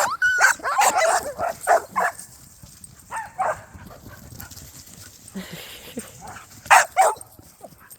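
Dogs whining and yipping in a quick run of short, pitched calls for about two seconds, then a few sparser yips, the loudest about seven seconds in.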